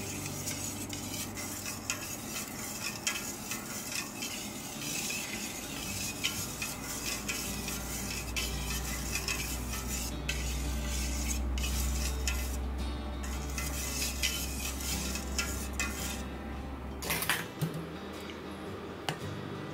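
Wire balloon whisk stirring custard batter gently in a stainless steel bowl, its wires clinking and scraping lightly and steadily against the metal. Near the end, a short louder clatter of metal.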